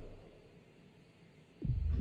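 Monster-movie sound effects: a deep low rumble fades away to quiet, then a sudden, loud deep boom hits near the end.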